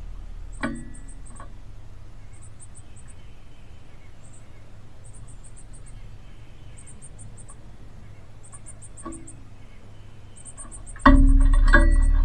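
Insects chirp steadily in short, high-pitched pulsed groups about once a second, with a few faint clicks. About eleven seconds in comes a sudden loud rumble with knocks as a northern cardinal lands on the metal feeder perch right by the microphone.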